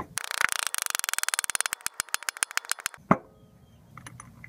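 An orange mallet tapping the new harmonic balancer (crankshaft pulley) of a 1996–2001 Toyota Camry four-cylinder onto the crankshaft to seat it. The taps come in a rapid run that thins out, then one louder knock about three seconds in, and a few light metal clicks near the end as the crank bolt and washer are handled.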